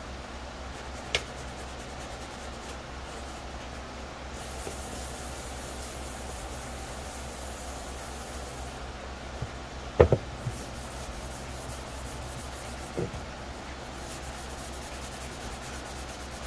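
A plastic helmet shell being hand-sanded with a fine sanding sponge: a soft rubbing hiss that comes and goes in spells of strokes, scuffing the surface before primer. A sharp knock comes about a second in, a louder pair of knocks about ten seconds in, and one more a few seconds later.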